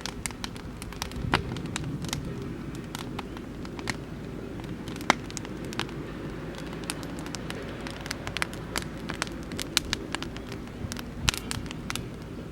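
Oak-wood campfire crackling, with irregular sharp pops and snaps over a steady low rushing background.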